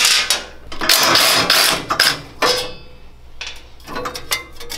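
Stock perforated sheet-metal chain guard scraping and rattling against the trike's frame as it is pulled off, the loudest part a long scrape about a second in, followed by several sharp metal clicks.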